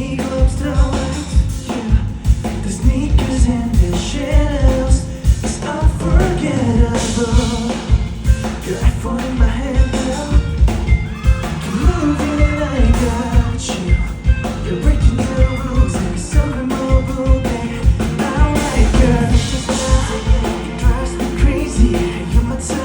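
Live band and singer performing an upbeat pop-rock song, a sung melody over a steady driving beat of about two strong beats a second.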